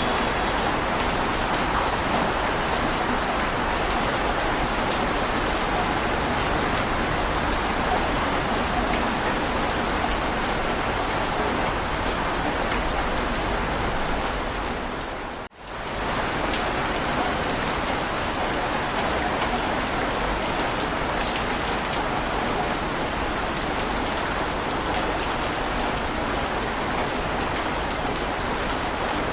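Steady heavy rain, a dense, even hiss of drops. About halfway through it fades out for a moment and comes straight back.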